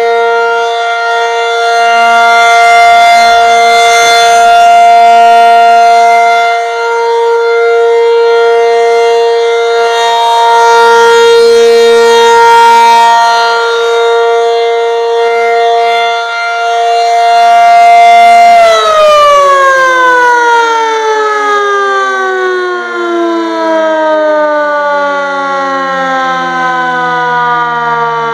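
Federal Signal 500-DH-TT outdoor warning siren sounding a steady alert tone, loud and swelling and fading slowly. About two-thirds of the way through it cuts off and winds down, its pitch falling in a long smooth glide at the end of a one-minute alert signal.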